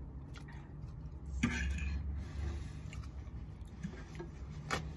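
Fork clinking against a metal cooking pot and plates as noodles are served: a few sharp clicks, two of them louder (about a second and a half in and near the end), over a steady low hum.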